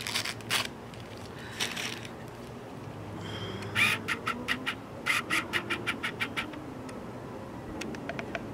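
A run of short, sharp animal calls repeated about five times a second for a couple of seconds, with a few scattered clicks before it.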